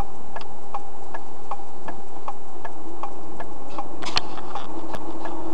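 A car's turn-signal indicator ticking steadily, about two and a half clicks a second, while the car makes a left turn. There is one louder knock about four seconds in.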